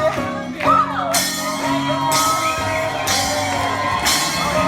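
Upbeat music with a steady beat and a voice over it.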